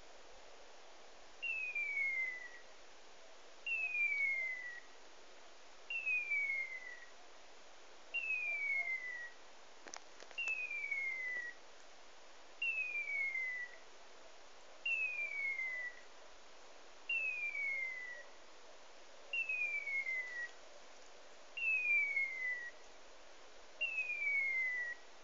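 A hunting dog's beeper collar sounding its point signal: a falling electronic chirp, the same each time, repeated eleven times at about two-second intervals, a sign that the Brittany spaniel is standing motionless on point.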